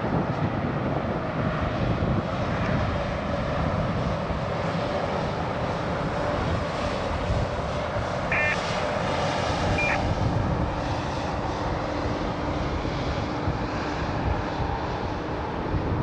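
Steady rumble of road traffic, with cars passing on the highway close by. Two brief high chirps come about eight and ten seconds in.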